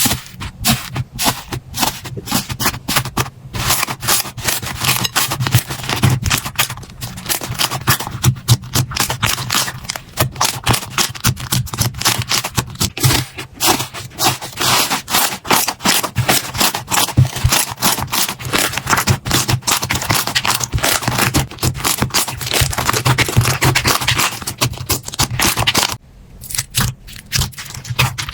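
Slime being squeezed and worked by hand, a dense run of wet crackling and popping clicks. Near the end the clicks become sparser.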